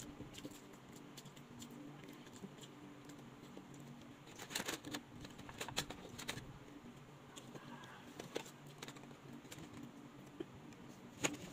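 Quiet scattered clicks and taps of wooden chopsticks and utensils against plastic food containers, with a louder cluster about four to six seconds in and one sharp click near the end, over a faint steady low hum.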